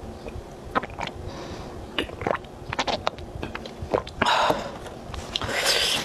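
Close-miked mouth sounds of drinking from a plastic water bottle: scattered wet clicks and swallows. Then two louder bursts of paper tissue rustling, about four seconds in and again near the end as the mouth is wiped.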